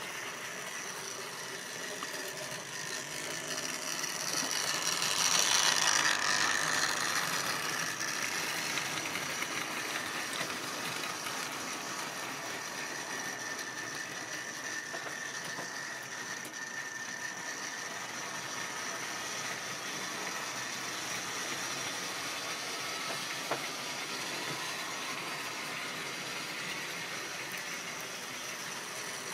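Tri-ang OO-gauge model train running along the track: a steady mechanical whirr with a high, steady whine, loudest about five to seven seconds in.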